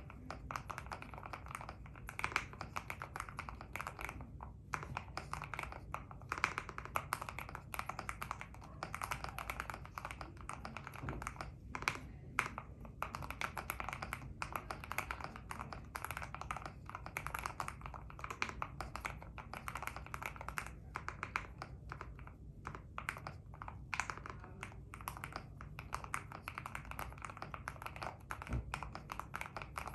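Fast typing on a mechanical keyboard: a dense, continuous run of keystrokes with brief pauses, each key giving a deep, rounded clack that sounds like marbles, a 'thock'.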